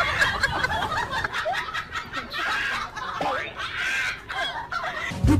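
A person laughing and snickering in short broken bursts.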